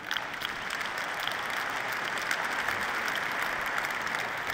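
A large audience applauding: a dense, even wash of clapping that comes in at once and holds steady, beginning to fade near the end.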